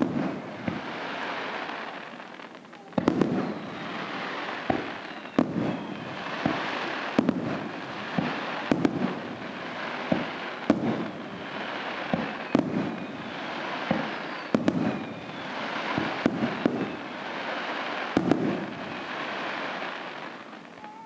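Fireworks display: sharp bangs of bursting shells every second or two, with a dense crackling hiss swelling and fading between them.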